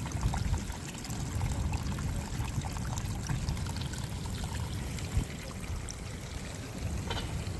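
Running water: a stream of rainwater runoff pouring steadily down the hillside into the filling pond, with a constant low rumble underneath.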